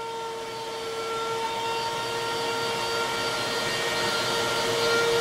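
Router spindle of a homemade CNC machine running with a steady whine as its bit cuts letters into a scrap board, growing louder over the first few seconds.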